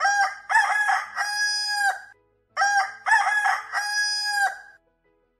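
Rooster crowing twice, two full cock-a-doodle-doos each about two seconds long and ending on a long held note.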